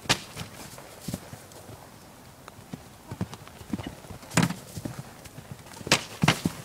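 Pony's hooves on a sand arena as it trots up to a small jump and clears it, with loud thuds of the hooves taking off and landing close by.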